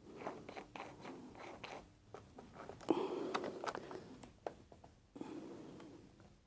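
Small clicks, taps and scraping of hands and tools handling parts on a workbench, with a louder stretch of scraping about three seconds in.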